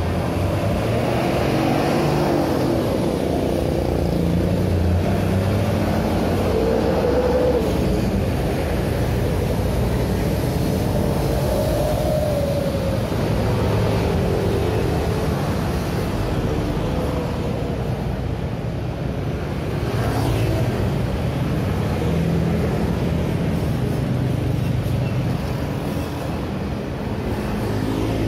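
Steady road traffic: a stream of motor scooters and cars passing close by, each engine note swelling and fading as it goes past.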